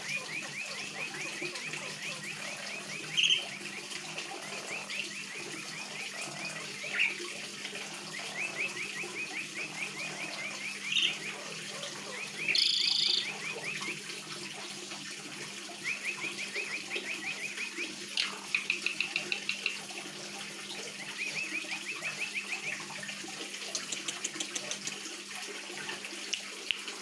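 Young male Asian pied starling calling in fast chattering runs of rising notes, again and again, broken by a few loud shrill calls, the loudest about twelve seconds in.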